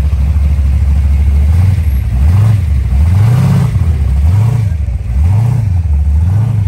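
Holden Torana's engine running at a low idle as it rolls past, then revved in four quick throttle blips, each note rising and falling, starting about a second and a half in.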